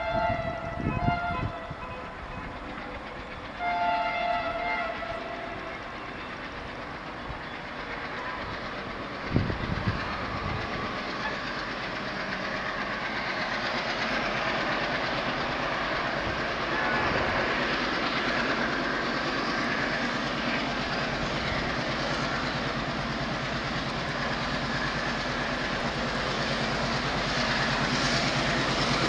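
WDM-3A ALCO diesel locomotive sounding its horn twice, short blasts near the start, then the locomotive's engine and the train's running noise growing steadily louder as it approaches.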